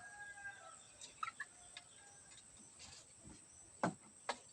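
Faint short bird chirps, then two sharp clicks about half a second apart near the end.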